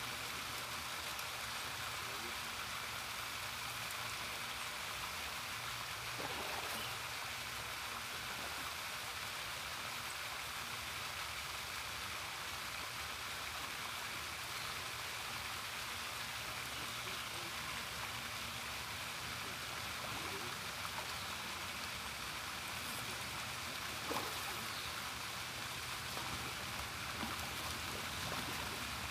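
Steady, even outdoor rushing noise with no clear single source, broken by a few faint soft knocks.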